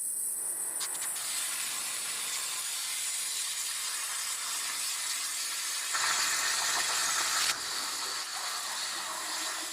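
Plasma cutter torch cutting: a steady high hiss of the arc and its compressed air, louder and fuller for about a second and a half around six seconds in.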